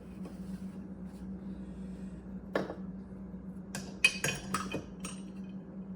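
Metal parts of a Woodriver No. 6 Bedrock-style hand plane clinking and knocking as the blade is set back into the plane: one knock about two and a half seconds in, then a quick cluster of sharp metallic clinks about four seconds in. A steady low hum runs underneath.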